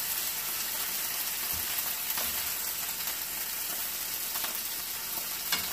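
Chicken pieces sizzling in hot sesame oil in a skillet, a steady frying hiss, with a few faint clicks along the way.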